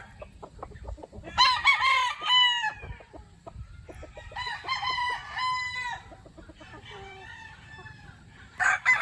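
Gamefowl roosters crowing: one crow about a second and a half in, another about four and a half seconds in, and a third starting near the end, with short clucks in between.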